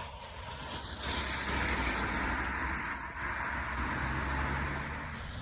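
Road traffic passing: a steady rush of tyre and engine noise that swells about a second in.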